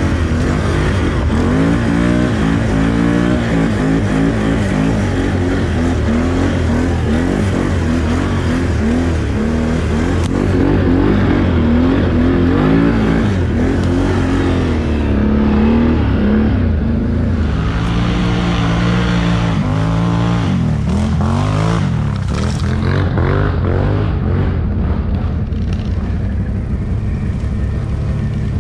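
ATV engine revving up and down again and again as the throttle is worked, its pitch rising and falling every second or two, over a steady rush of noise.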